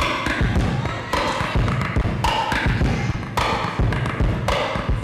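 Kalimba played in a rhythmic groove: plucked metal tines ringing about once a second over a steady pattern of low thumps several times a second.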